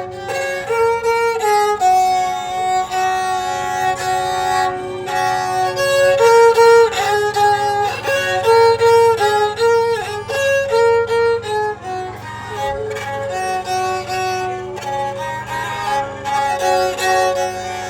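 A Bodo serja, a bowed folk fiddle, playing a melody of sustained, smoothly changing notes over a faint steady low hum.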